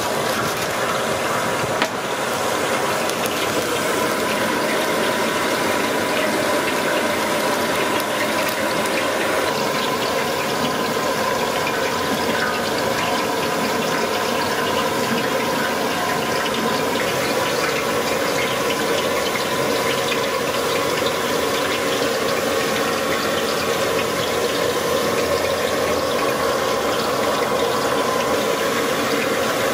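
Steady rushing noise of a gas burner firing under a large kadai of frying oil.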